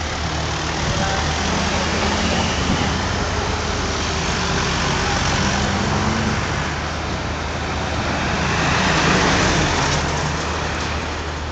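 Street traffic: engines of cars and pickup trucks running and passing, over a steady low hum, with one vehicle passing louder about nine seconds in.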